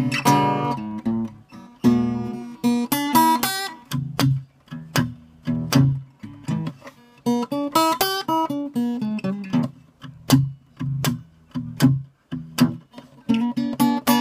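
Mini acoustic guitar fingerpicked in a blues style: plucked bass notes under treble lines, with quick runs of notes about three seconds and eight seconds in.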